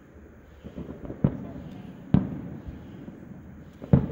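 Fireworks bursting: three sharp booms, about a second in, again about a second later and near the end, each trailing off in a rumble.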